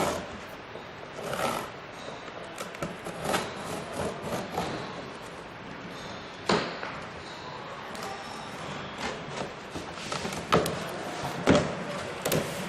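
Cardboard carton of a solar water heater tank being opened and handled: scattered rustling and scraping with several sharp knocks, the loudest near the end.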